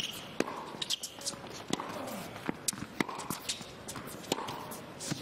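Scattered sharp knocks of tennis balls bouncing on an indoor hard court, roughly one a second, over a low crowd murmur in a large arena.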